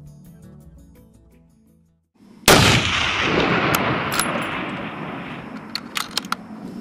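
Background music fading out, then a single 7mm Remington Magnum rifle shot from a Remington Long Range Hunter about two and a half seconds in. Its report echoes and dies away slowly over a few seconds, with a few sharp clicks near the end.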